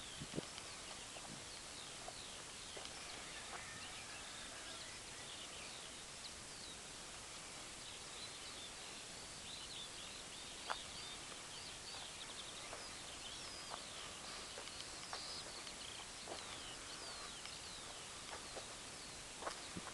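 Faint birdsong of many short chirps over a steady hiss, with a few scattered clicks, the loudest about ten seconds in.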